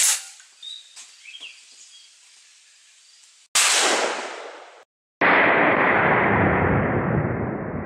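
12-gauge shotgun firing double-aught buckshot: a few light handling clicks, then a loud blast about three and a half seconds in. A second loud bang follows about a second and a half later and rings on with a long, slowly fading tail.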